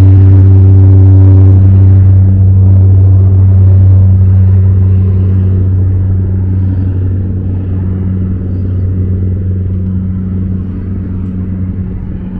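A loud, low, steady engine drone with a constant pitch that gradually fades away.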